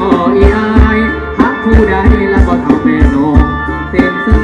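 Live Thai ramwong dance music from a band: a steady drum beat under a sustained melody line.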